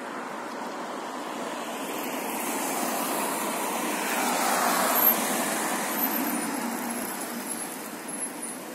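City street traffic: a car passes close by, its noise swelling to a peak about five seconds in and then fading.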